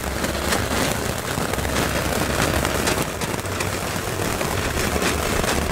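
Ground firework fountain burning steadily, a continuous hiss with dense fast crackling as it sprays sparks.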